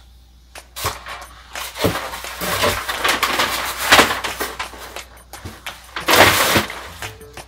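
Handling noise from unboxing a statue: a few light knocks, then about three seconds of crinkly rustling of packaging, and a louder rustle at about six seconds.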